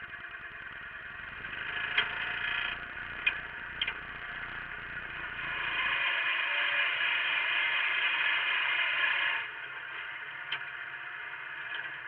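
Wheel Horse garden tractor's engine running under load while pulling a single moldboard plough through soil, with a few sharp clanks. The engine noise swells about halfway through for a few seconds, then drops back.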